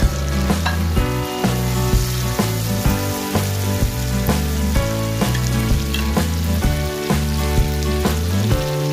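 Boiled eggs and chili sambal sizzling as they fry in a wok, stirred with a spatula, under background music with changing bass notes and a steady beat.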